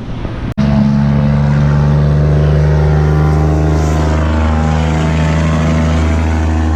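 Steady, unchanging engine drone, most likely a vehicle engine running. It starts abruptly after a brief dropout about half a second in.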